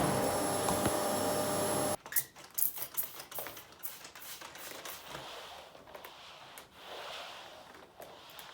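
A household appliance runs with a steady hum and fixed tones, then cuts off abruptly about two seconds in. Irregular light clicks and taps of objects being handled follow.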